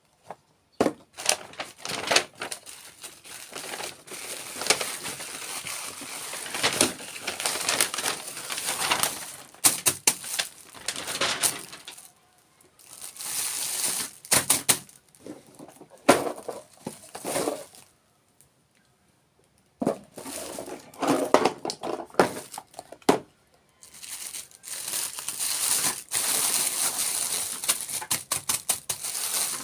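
Close-miked crinkling, crunching and clicking from desserts and their packaging being handled and eaten, in irregular bursts. There is a brief silent pause about two-thirds of the way in.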